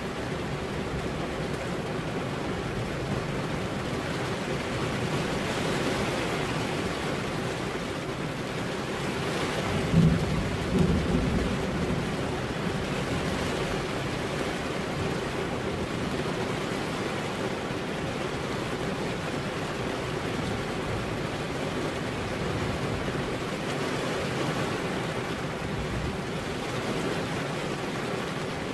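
Steady rain falling, with a loud thunderclap about ten seconds in, followed a second later by a second crack that trails off in a short rumble.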